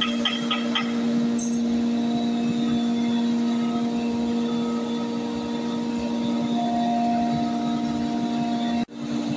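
Steady hum of a running workshop machine's motor, cutting out briefly near the end.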